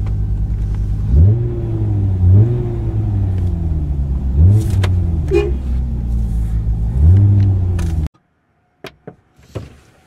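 Hyundai car engine heard from inside the cabin, its pitch jumping up four times and sliding back down after each rise as the car is driven. It cuts off suddenly about 8 seconds in, followed by a few faint knocks.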